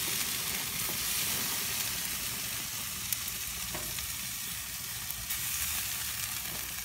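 Steak and chicken drumsticks sizzling on a grill: a steady hiss with a few faint pops.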